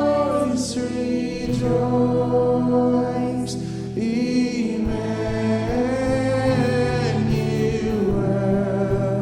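Church worship music with a choir or congregation singing held notes over instrumental accompaniment.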